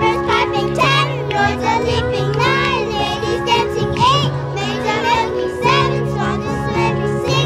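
A group of young children singing a Christmas song together in unison over instrumental backing music.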